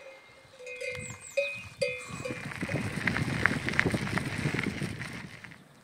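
Livestock bells clanking a few times, each strike ringing on, the sharpest two about a second and a half in. Then comes a few seconds of rough, rumbling noise with faint clanks in it, which stops shortly before the end.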